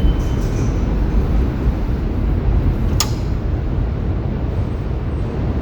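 New York subway train rumbling at an elevated station platform, a steady low rumble with one sharp click about three seconds in.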